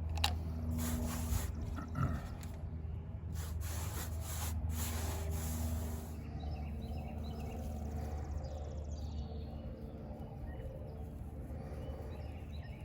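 Outdoor ambience: a steady low hum, with a few light rustles and knocks in the first half and faint bird chirps in the second half.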